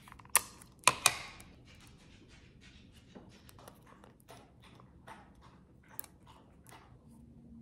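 Small clicks and rustles of fingers handling sticky tape and a broken ornament, with two sharper clicks about half a second and a second in, then faint scattered ticks.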